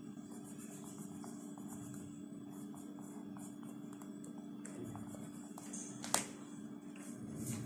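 Coloured pencil scratching on paper in short, irregular strokes as a small area is shaded in, then one sharp click about six seconds in as the pencil is set down on the table. A steady low hum underneath.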